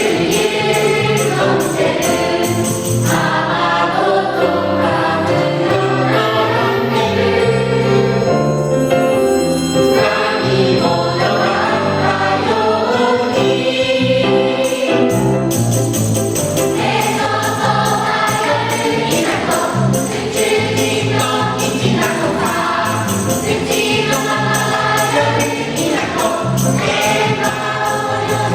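Voices singing a children's song in chorus with instrumental accompaniment and a steady percussive beat.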